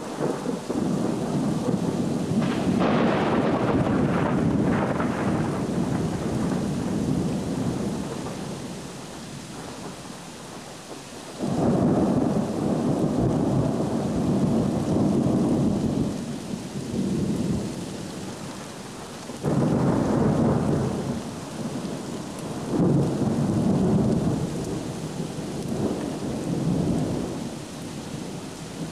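Thunder rolling in long low rumbles over steady rain. A rumble at the start fades away over several seconds, then a sudden clap about a third of the way in and another about two-thirds of the way in each roll on for several seconds before dying down.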